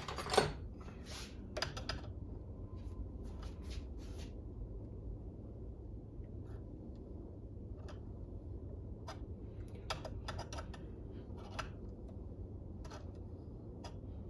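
Scattered small clicks and taps of hands handling and adjusting an RC car's wheelie bar, thicker in the first few seconds and sparser after, over a steady low hum.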